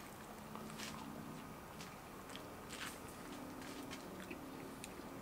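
Two people biting into and chewing breaded chicken wings coated in hot wing sauce: soft crunches and wet mouth clicks, scattered through the chewing.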